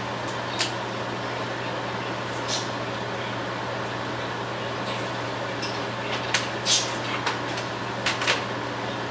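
Steady hiss and low hum of pans simmering on a gas range's lit burners, with a salsa being brought to a boil. A handful of short, sharp clicks and pops come through, most of them in the second half.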